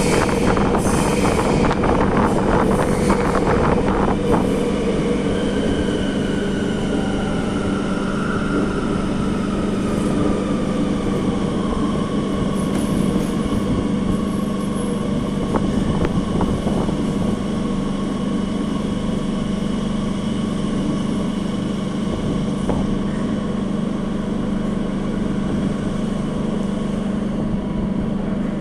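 Madrid Metro series 8000 train heard from inside the car, running through a tunnel and slowing into a station: a steady rumble of running gear, with a whine that falls in pitch as the train slows. Rapid clicks and rattles come over the first few seconds.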